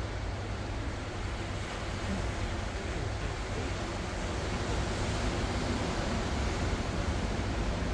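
Ocean waves washing onto the shore, a steady surf that swells slightly about five seconds in, over a low rumble of wind on the microphone.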